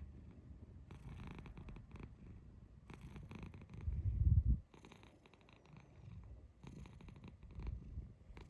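Domestic cat purring, a continuous low rumble that swells loudest about four seconds in, broken by a few short rolling trills (a 'kururu' chirrup).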